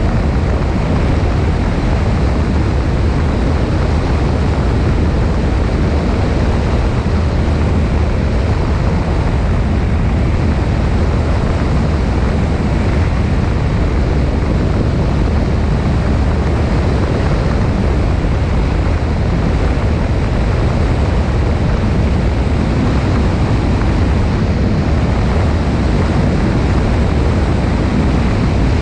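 Cessna 172 in steady cruise flight, heard from a wing-mounted camera: a constant rush of wind over the microphone with the low, even drone of the engine beneath it.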